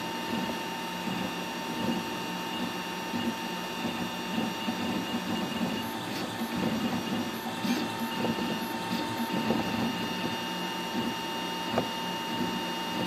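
MakerGear M2 FDM 3D printer printing in PLA: its stepper motors whir through quick, changing head moves over a steady high whine. One sharp click near the end.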